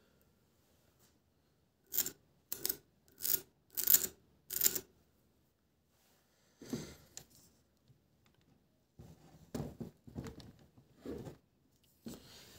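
Handling noise from hands working loose wires and a small capacitor box: a quick run of five short, sharp noises about two seconds in, then a few quieter scattered ones later on.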